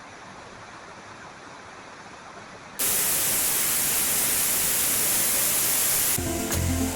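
Steady rushing of falling water. About three seconds in it jumps suddenly to a much louder, brighter hiss. Near the end, background music with a beat takes over.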